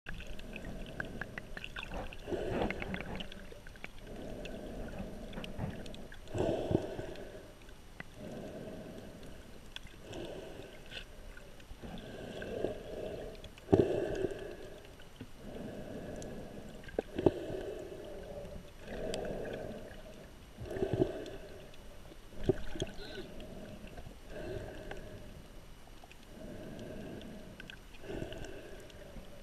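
Muffled underwater sound through a waterproof GoPro housing: a snorkeler's breathing through the snorkel and water moving, swelling and fading every couple of seconds, with a few sharp knocks.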